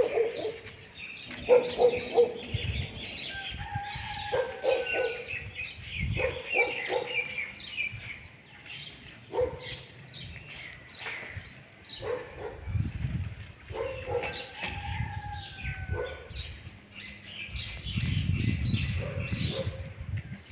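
Repeated short barks of a dog with birds chirping throughout, and a low rumble near the end.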